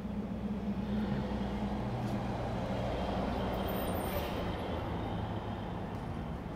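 Low, steady mechanical hum like a distant vehicle's engine, swelling over the first few seconds and easing off slightly.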